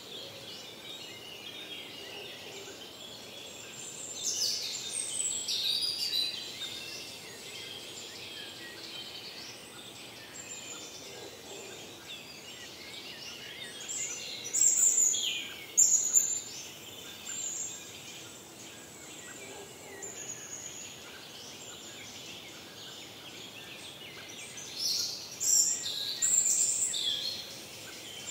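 Woodland birds singing in the morning chorus: a steady bed of distant bird song, with a nearer songbird singing a short, busy phrase three times, about ten seconds apart.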